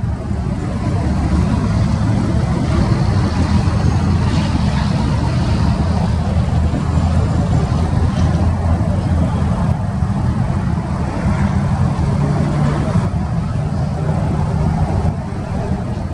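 Union Pacific diesel locomotive running as it creeps past at close range: a loud, steady low rumble.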